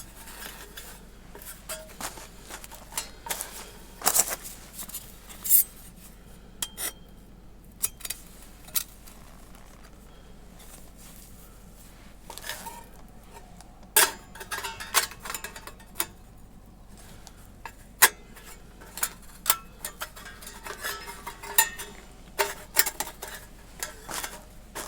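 Thin titanium plates and parts of a small fire pit clinking and clattering against each other as they are fitted together, in irregular sharp clinks and taps with short pauses between them.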